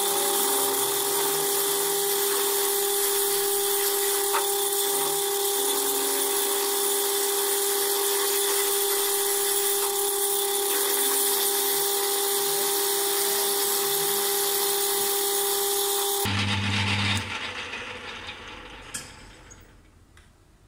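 Metal lathe facing the end of an Ergal (7075 aluminium) bar: a steady hiss over a constant machine whine. It breaks off about sixteen seconds in, and what is left fades away over the next few seconds as the spindle winds down.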